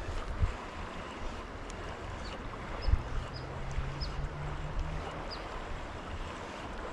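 Shallow river water flowing and rippling steadily, with some wind on the microphone. There is a brief low thump about three seconds in and a few faint, short, high chirps.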